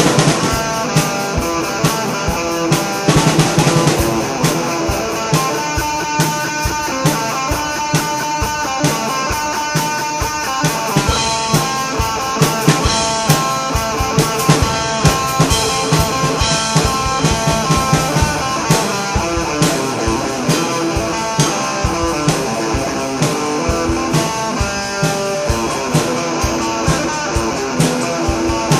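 Instrumental rock music: guitar and drum kit playing together, with rapid, steady drum hits.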